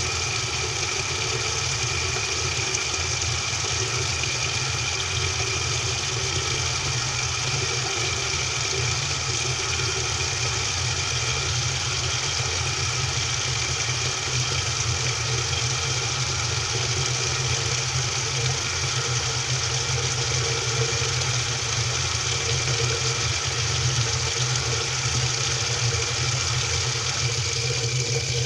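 Washing machine running, heard from inside the drum: a steady mechanical hum with a few held tones and no breaks.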